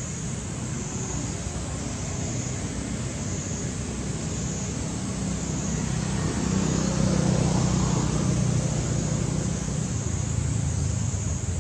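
Outdoor background rumble like distant road traffic, swelling to its loudest a little past the middle as if a vehicle passes, then easing, over a steady high hiss.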